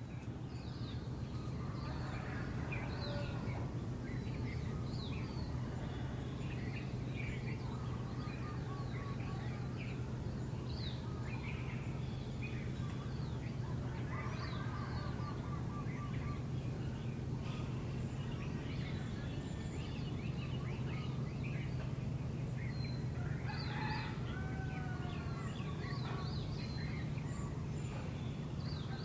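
Many birds chirping and calling in short, varied phrases over a steady low hum.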